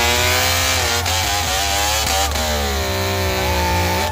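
Kawasaki two-stroke triple engine in a KV75 minibike being revved hard. Its pitch blips up and down, drops a little after about two seconds, then climbs again near the end.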